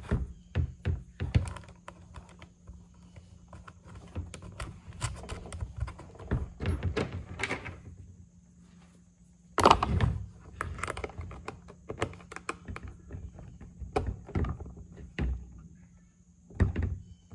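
Handling noise from fitting small nuts and a screwdriver onto screws through a plastic case lid: scattered clicks, taps and knocks, with one louder thunk about ten seconds in.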